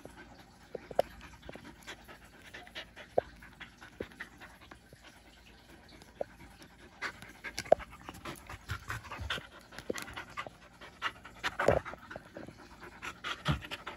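A puppy panting, with scattered small clicks and taps as it moves about and a couple of soft thumps near the end.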